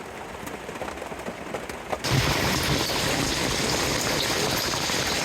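Rain falling, then, about two seconds in, a much louder heavy downpour of rain and hail with dense rapid hits.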